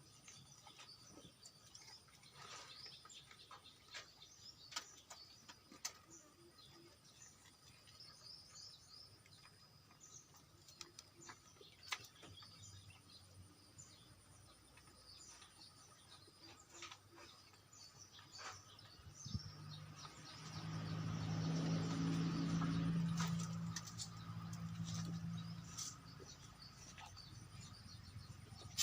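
Faint chirping of small birds with scattered light clicks. About two-thirds of the way through, a steady low hum swells for several seconds and then fades.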